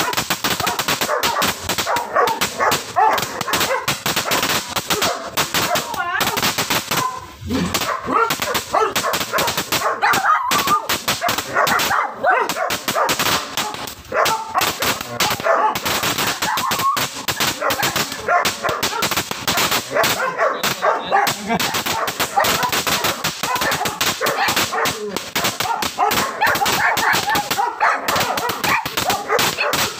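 Crackling fountain firework (Mabuhay "Luces") burning, with a dense, unbroken crackle of tiny rapid pops as it sprays sparks; a dog barks over it.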